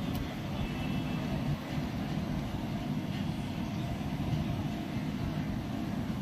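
Steady low rumble of busy street noise, with a few faint clicks near the start.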